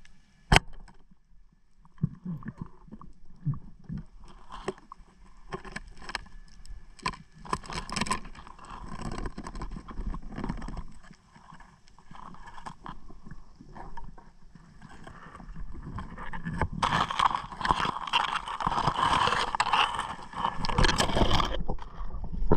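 Underwater sound of spearfishing: a single sharp snap of the speargun firing about half a second in. Irregular knocks and scrapes of the gun, spear and hands against rock follow, swelling into dense scraping and rustling in the last few seconds.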